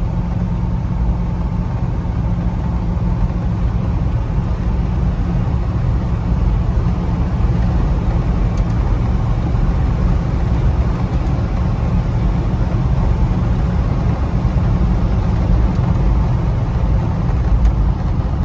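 Cabin noise of a 1990 Jeep Grand Wagoneer cruising at about 70 mph: a steady low drone from the 5.9-litre AMC 360 V8, with road and wind noise over it. The cabin is super quiet at this speed.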